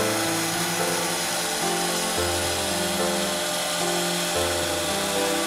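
Background music with slowly changing bass and chord notes, laid over a steady high hiss of CNC router spindles engraving board.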